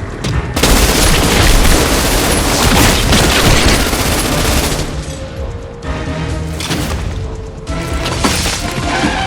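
Action-film sound effects: a loud, dense roar of booms and rapid gunfire-like cracks lasting about four seconds, which then gives way to dramatic film score music.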